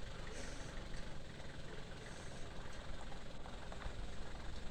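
Engine of a carrier truck idling steadily.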